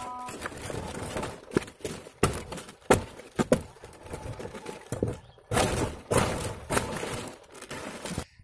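Sickle hacking at the stalks of a young fan palm: a run of sharp chopping strikes, then longer stretches of rustling and swishing fronds about five seconds in.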